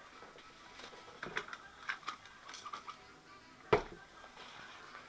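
Scattered light clicks and taps of a small metal digital indicator being handled on a bench, with one louder sharp knock about three and a half seconds in.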